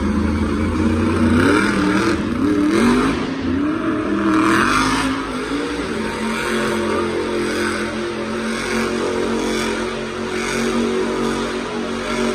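Monster truck engine revving, its pitch climbing in repeated rising steps for the first few seconds, then holding a steady drone.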